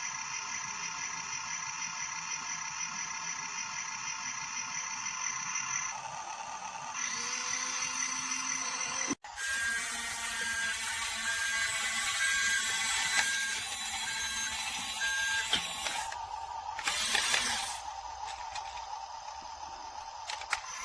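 A toy RC bulldozer's small electric motors and gears whirring steadily, cut off abruptly about nine seconds in. After the cut the mechanical running is noisier, with a short high beep repeating at even intervals for a few seconds and a louder burst of noise near the end.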